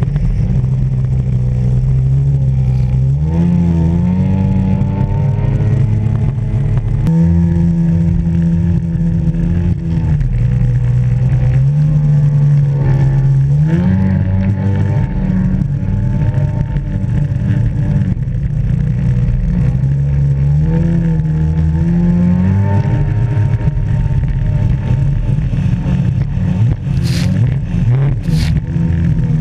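Jet ski engine running at speed, its pitch stepping up and dropping back several times as the throttle is worked, over rushing water and spray. Two sharp knocks come near the end.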